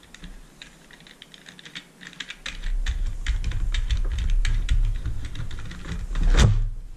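Rapid small clicks and taps of plastic vacuum parts being handled during disassembly. A low handling rumble comes in about two and a half seconds in, and a brief loud scrape sweeps up and down near the end.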